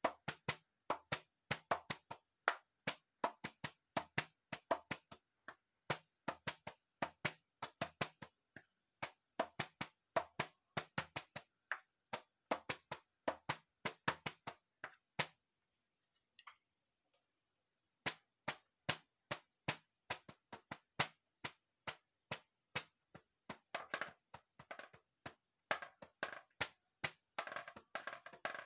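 Hand strikes on a homemade percussion instrument: quick, rhythmic taps and knocks. The playing stops for a couple of seconds about halfway through, then starts again, with denser strokes near the end.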